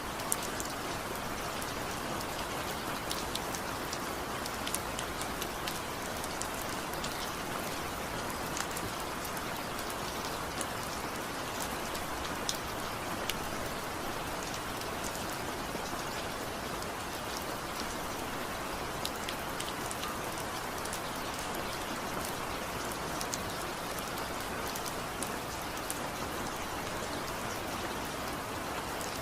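Steady rain falling on a surface: an even hiss with many scattered sharp drop ticks.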